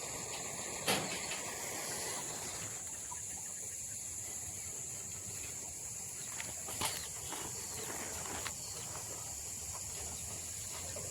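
Steady high-pitched insect trilling, with one sharp click about a second in and a few fainter clicks later.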